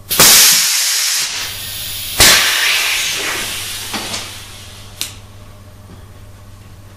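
Avdel 73200 air-hydraulic installation tool triggered on its compressed-air supply during priming: a loud rush of exhausting air at the start and a second about two seconds in, each fading to a hiss. A light click follows about five seconds in.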